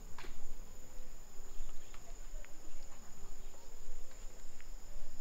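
Insects chirring in a steady high drone, over a low rumble and scattered light ticks.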